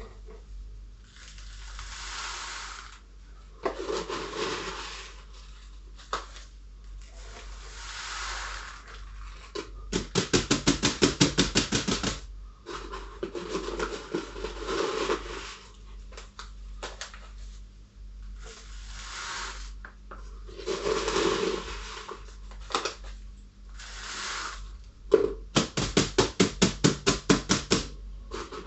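Clay and lava granule substrate (Seramis and Vulkatec) scooped from a plastic bucket with a plastic cup and poured into a large plastic bottle, a gritty rushing pour repeated every few seconds. Twice a fast run of sharp knocks, about eight a second, stands out as the loudest sound.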